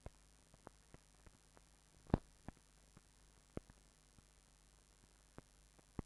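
Faint steady hum and hiss of an old film soundtrack, with scattered clicks and pops; one louder pop about two seconds in.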